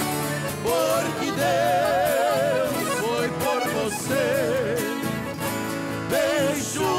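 Brazilian sertanejo raiz polka played by a piano accordion, a ten-string viola caipira and an acoustic guitar, with a melody line wavering in a strong, even vibrato over a steady strummed accompaniment.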